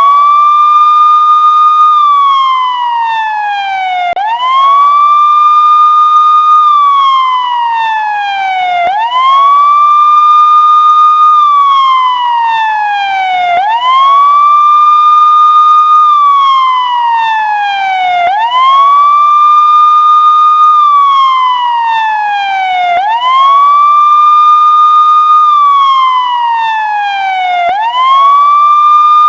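Emergency-vehicle siren sounding a slow wail. Each cycle rises quickly, holds its high note for a moment, then falls slowly, repeating about every four and a half seconds, six times over.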